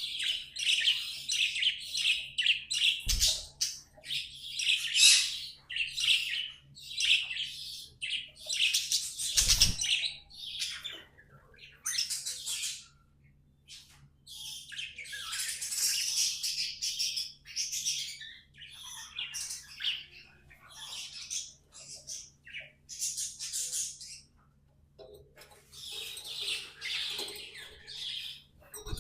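Budgerigars warbling and chattering in fast runs of high chirps, with a few short pauses. Two dull low thumps sound about three and nine and a half seconds in.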